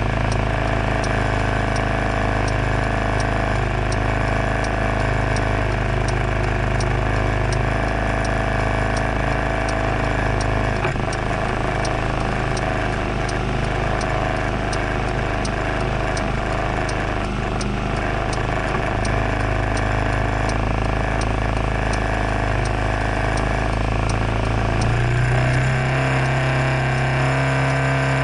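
Scooter engine idling steadily while stopped, with a light regular ticking about twice a second over it. The idle hum steps up slightly in pitch near the end.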